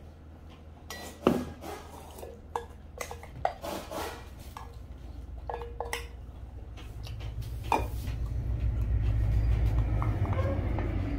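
A wooden spoon knocking and scraping against a plastic food tub and a stainless-steel bowl, in a string of sharp clicks. From about seven seconds in, a low rumble swells up and becomes the loudest sound, under one more sharp knock.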